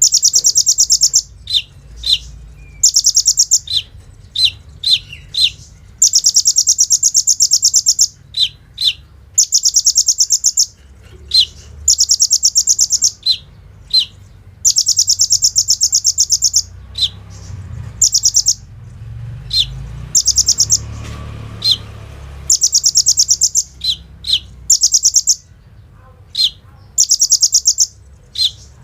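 Kolibri ninja sunbird singing: high, very fast machine-gun-like trills lasting a second or two each, alternating with short sharp single chips.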